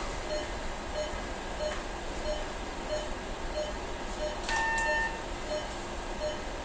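Operating-room patient monitor beeping softly with each pulse, about one and a half beeps a second, over a steady room hiss. About four and a half seconds in, a longer, louder beep sounds for about half a second.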